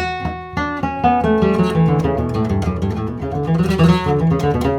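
Flamenco guitar playing a fast picado scale, single notes plucked in quick succession by alternating middle and index fingers.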